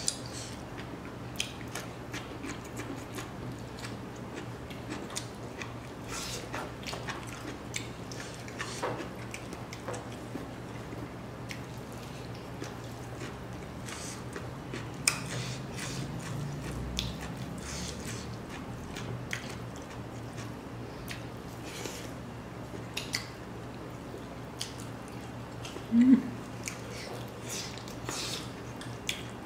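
A person eating rice and pork by hand and chewing close to the microphone: scattered soft clicks and smacks of chewing over a steady low hum, with one short louder low sound near the end.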